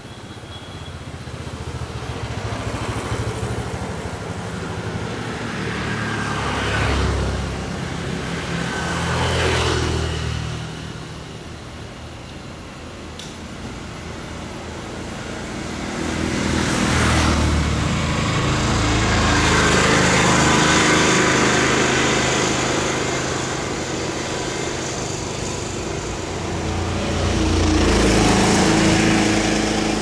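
Road traffic: several motor vehicles pass one after another, each swelling in engine and tyre noise and then fading, over a steady low rumble.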